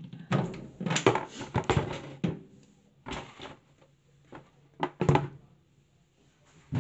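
Clanks and scrapes of a telescopic basin wrench working on a washing machine tap fitting, in three short clusters with pauses between.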